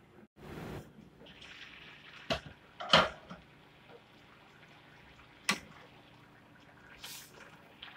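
Glass pan lid lifted off a simmering pan of pineapple jam and set down, then a spatula stirring and knocking against the pan. Three sharp clinks, the loudest about three seconds in, sit over the soft bubbling of the jam.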